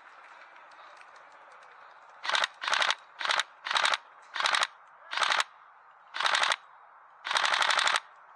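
Airsoft rifle firing eight short full-auto bursts of rapid shots, starting about two seconds in, the last burst the longest.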